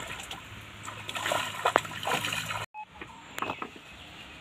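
Water splashing and sloshing at the surface where a large fish has just been let go from a boat and is thrashing away, with a few louder splashes in the middle. The sound cuts off abruptly just over halfway through, leaving only quiet background with a couple of small clicks.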